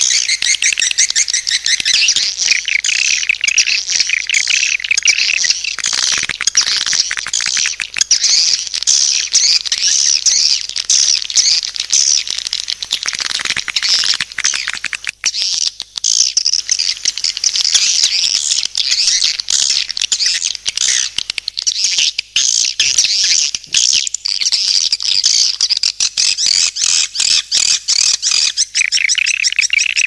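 Recorded swiftlet calls: a dense, unbroken chorus of rapid, high chirping and twittering from many birds. It is a lure call ('suara panggil') of the kind played to draw swiftlets into a nesting house.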